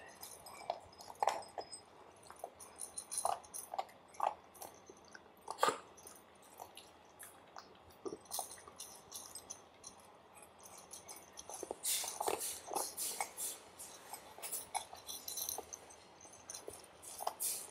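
A golden retriever puppy and a kitten chewing and crunching puppy kibble from one bowl: irregular crunches and clicks, with a denser run of crunching about two-thirds of the way through.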